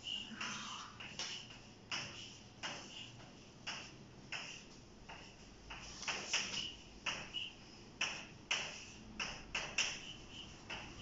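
Chalk writing on a chalkboard: a quick, irregular series of taps and short scratchy strokes, one every half second or so.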